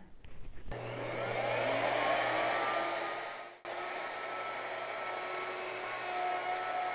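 Router on a Pantorouter, fitted with a 3/4-inch cove bit and dust extraction, starting up with a rising whine and then running steadily. The sound drops out for an instant about halfway through.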